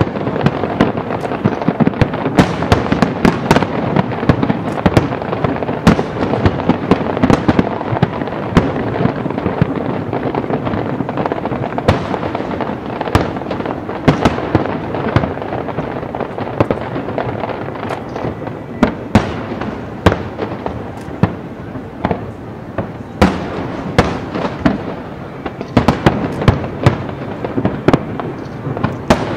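Aerial firework shells bursting in quick succession: dozens of sharp booms over a continuous crackling din.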